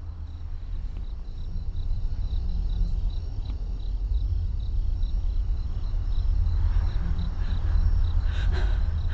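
Horror-film soundtrack: a low drone slowly swells in volume under crickets chirping steadily, about three chirps a second. A woman's sharp breath comes in near the end.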